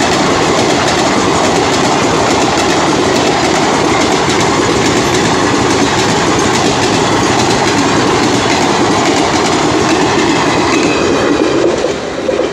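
ICF passenger coaches passing at speed, their wheels clattering hard over the rail joints in a steady clickety-clack, the 'cracking' track sound. The sound drops away near the end.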